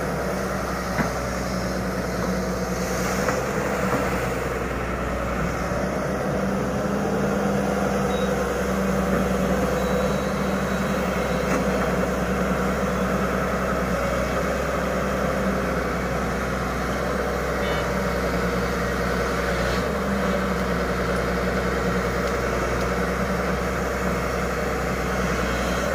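Hyundai 210 crawler excavator's diesel engine running steadily as the machine works, with a steady low hum.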